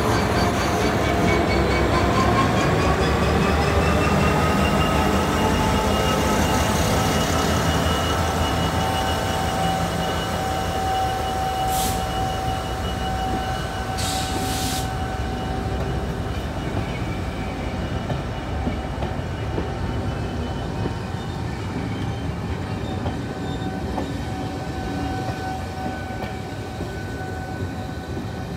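Class 66 diesel locomotive's two-stroke V12 engine running under power as the train of coaches passes, its engine note rising over the first few seconds and then holding steady, with a low rumble of the train underneath. Two brief hisses come about halfway through, and the sound slowly fades as the train draws away.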